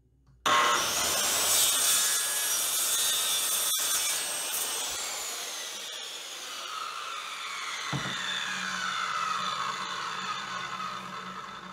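Ridgid corded circular saw starting up with a rising whine and cutting through a wooden board, then the blade coasting down with a slowly falling whine. A thump about eight seconds in.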